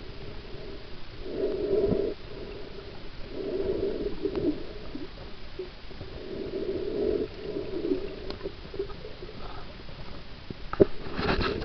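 Muffled water noise picked up by a camera held underwater by a swimmer, coming in surges every two to three seconds as the swimmer moves through the water, with a brief sharper burst of water noise and a few clicks near the end.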